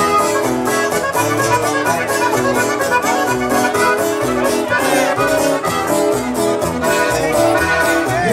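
Latin band music with accordion and guitar over a steady dance beat.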